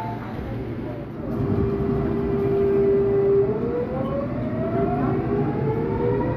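Seoul Subway Line 8 train pulling away from a station: the traction motors give a steady whine that, about three and a half seconds in, begins to climb in pitch as the train accelerates, over a low rumble from the running gear.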